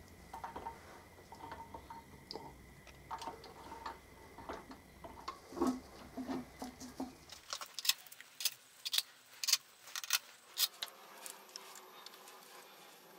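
Light metallic clicks and clinks from hand work on the RF45 milling machine's reassembled gearbox. After a break about halfway, sharper clicks come about two a second as the gear train is rocked back and forth, taking up what is now only a little backlash.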